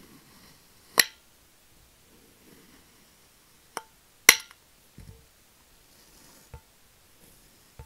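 A knife slicing through kinetic sand with a faint soft crumbling hiss, its blade clinking sharply against a glass plate several times, loudest about a second in and again a little past halfway. A dull thud comes about five seconds in.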